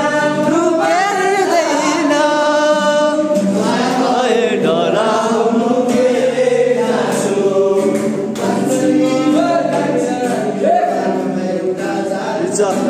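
A group of young men singing together loudly, accompanied by an acoustic guitar.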